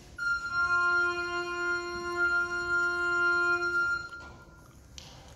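Recorder, violin and bassoon open with one long sustained note held for about four seconds, which then breaks off. A short soft noise follows near the end.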